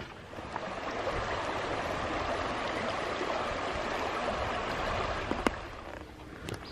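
A shallow, rocky creek flowing and babbling over stones. The water sound swells in about half a second in and fades away near the end, with one sharp click shortly before it fades.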